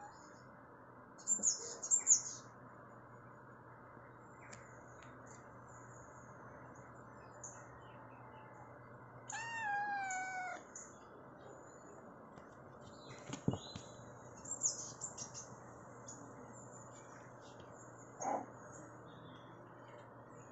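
High, sharp bird chirps play from a bird video on laptop speakers; the loudest come about a second in, with more scattered chirps later. A kitten gives one drawn-out meow, falling in pitch, about nine seconds in, over a low steady hum.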